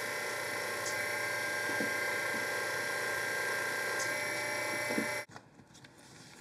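Pastel-paste extruding machine running steadily with a motor whine as it presses pastel paste out into rods, then stopping abruptly about five seconds in.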